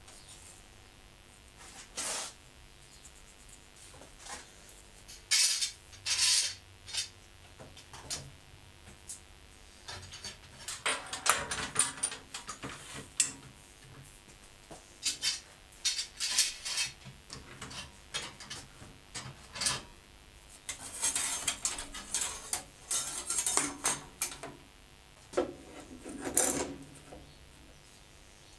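Metal bar clamps and wooden frame strips being handled: scattered clatter, scraping and rattling as the clamps are set down, slid along their bars and tightened, with short runs of sharp knocks.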